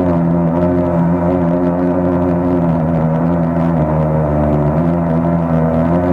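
A machine's motor running steadily with a deep, even hum that dips slightly in pitch about four seconds in.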